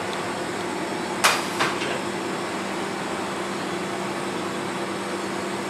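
Steady hum of a kitchen extractor fan, with a sharp clink about a second in and a lighter one just after.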